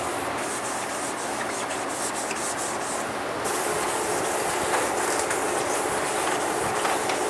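Abrasive scuff pad rubbed back and forth by hand over spray-painted wood door trim, a steady scratchy rubbing. The pad is knocking the gloss paint down to a satin sheen.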